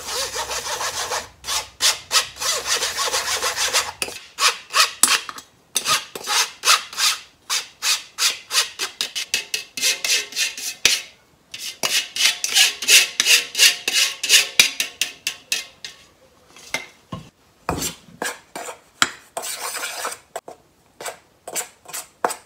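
Metal spoon scraping flour and ground hojicha through a fine stainless-steel mesh sieve in quick repeated strokes, broken by a few short pauses. The strokes are fainter in the last several seconds.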